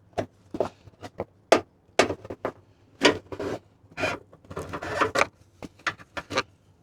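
Irregular short clicks and knocks with some rubbing, from parts being handled while an LED headlight bulb is fitted into the headlight housing.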